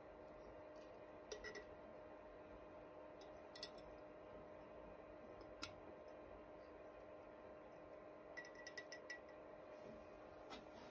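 Near silence: room tone with a faint steady hum and a few faint, small clicks, including a quick run of them about eight and a half seconds in.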